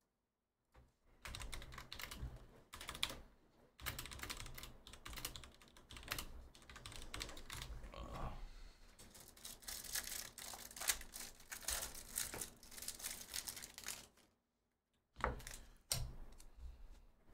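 Typing on a computer keyboard: quick runs of key clicks broken by short pauses, fairly faint.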